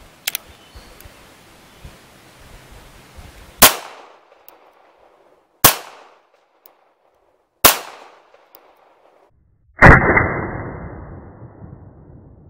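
CZ 75 BD pistol fired four times at a steady pace, about two seconds apart. The last shot is the loudest, with a long decaying tail.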